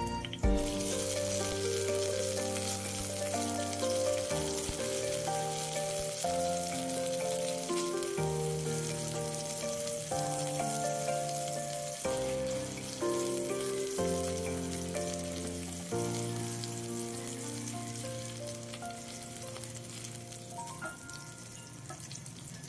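Sliced onions dropped into hot oil with ginger in an enamelled cast-iron pan: a sizzle that starts suddenly about half a second in, then steady frying as they are stirred and softened. The sizzle slowly dies down over the last several seconds.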